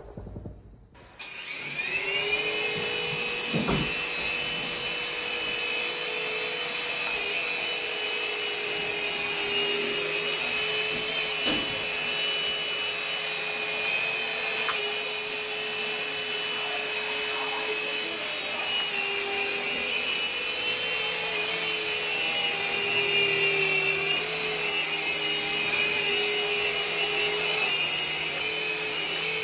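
Electric motors and rotors of a Double Horse 9102 coaxial toy RC helicopter spinning up about a second in, then running with a steady high-pitched whine whose pitch wavers slightly.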